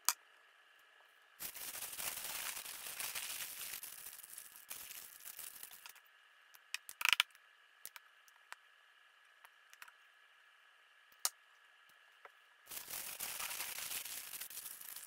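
Heavy-duty aluminium foil crinkling as it is folded and crimped around a rack of ribs, in two long stretches, with a few sharp clicks in between.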